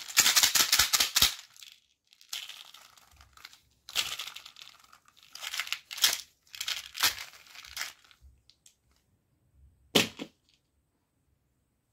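Plastic toy bicycle with candy-filled clear plastic wheels being handled: a rapid run of clicks and rattles that stops after about a second, then several short bursts of plastic rustling and scraping, and a single sharp knock about ten seconds in as the toy is set down on a wooden table.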